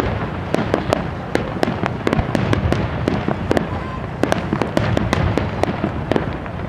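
Star mine fireworks barrage: rapid, irregular bangs and crackling shell bursts, several a second, over a continuous low rumble.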